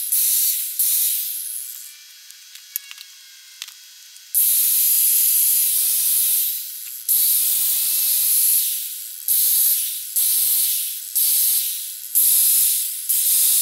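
Handheld angle grinder working the steel end of a car's lower control arm in bursts, a harsh hiss that spins down each time the trigger is let go. After a pause with a few clicks, there is one long burst, then a quick string of short ones.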